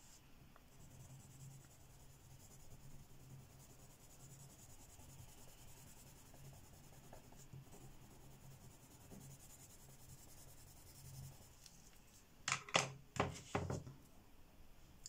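Derwent Lightfast coloured pencil shading a swatch on paper: faint, steady scratching of the lead against the page. Near the end come a few sharp knocks.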